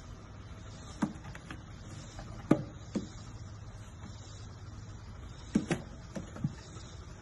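Light taps and knocks of a fawn's hooves and a golden retriever's paws shifting on wooden deck boards, about seven in all, with several close together in the second half, over a steady low hum.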